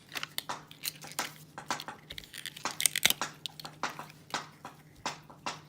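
Small plastic toy and packaging being handled: a run of light clicks, taps and crinkles, busiest about three seconds in.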